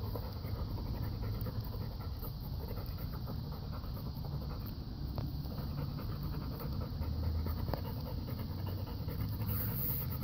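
Dog panting steadily while it chews on a log, with a few faint clicks from the chewing.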